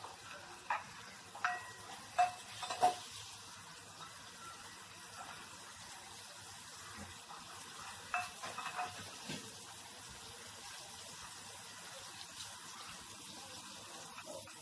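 Masala-coated pomfret pieces sizzling steadily as they fry in hot oil in a pan. Several light clicks and knocks against the pan come in the first three seconds and again around eight to nine seconds in.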